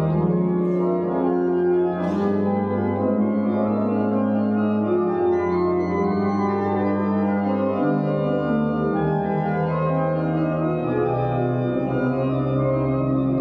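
Organ playing slow, sustained chords that change every two to three seconds.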